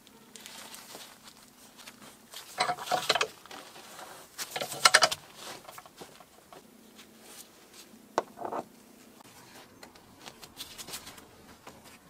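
Bench vise squeezing a ball bearing and gear onto a small steel gear shaft. Short bursts of metallic creaking and clicking come as the vise is tightened, the loudest about three and five seconds in, with a sharp click about eight seconds in.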